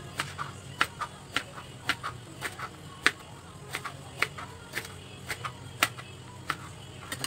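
Knife slicing angled luffa on a plastic cutting board: sharp, irregular taps of the blade hitting the board, about two or three a second, over a low steady hum.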